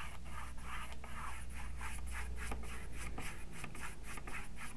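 Paintbrush scrubbing acrylic paint onto a hardboard panel in quick, even back-and-forth strokes, about four a second.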